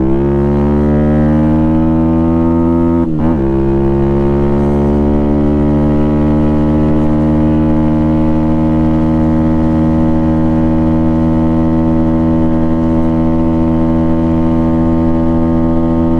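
Venom Thunder 125cc air-cooled single-cylinder four-stroke dirt bike engine at full throttle. It shifts up once about three seconds in, then climbs slowly in pitch and levels off as the bike nears its top speed of about 50 mph.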